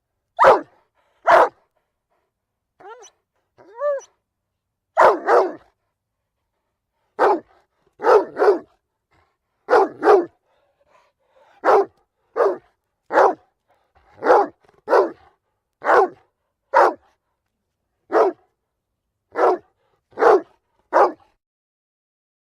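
A dog barking repeatedly, about twenty short, sharp barks, some single and some in quick pairs, with a couple of brief whines a few seconds in.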